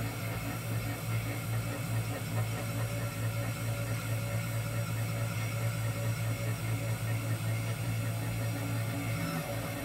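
CNC 3018 Pro mini CNC running a job, its 775 spindle motor turning a small bit that engraves lettering into a clear sheet: a steady mechanical hum that drops away near the end.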